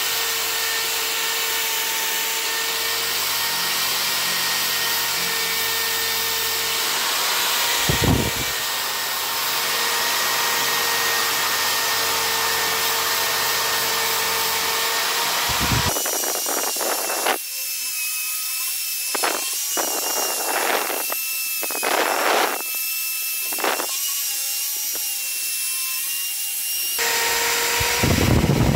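Electric drill spinning a steel wire wheel brush against a rusty steel bayonet scabbard, scrubbing off the rust: a steady motor whine under the scratchy hiss of wire on metal. About halfway through the sound turns thinner and higher, with the wire scratching the metal in short spurts, and the steady whine returns near the end.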